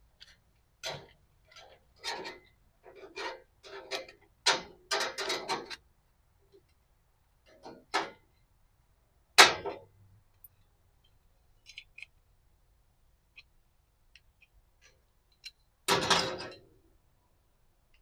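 Hand tin snips cutting thin sheet steel: about ten crunching cuts in quick succession over the first six seconds. Then scattered light metallic clicks, a loud sharp knock about nine seconds in, and a longer, louder sound about sixteen seconds in as the cut piece and snips are handled.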